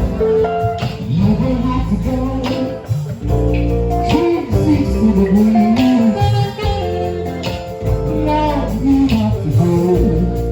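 Band music led by a guitar playing bending melodic lines over a percussion pattern.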